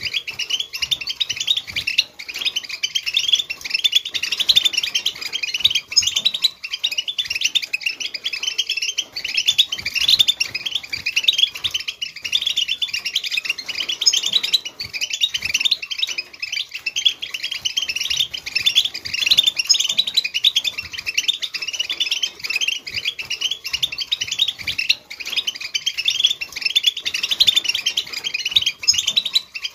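European goldfinch singing Wedani-style song: a fast, unbroken stream of high twitters and trills.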